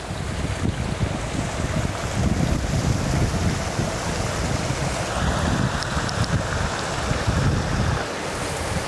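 Wind gusting on the microphone as an uneven low rumble, over a steady rush of water from surf breaking on a rocky shore and a waterfall.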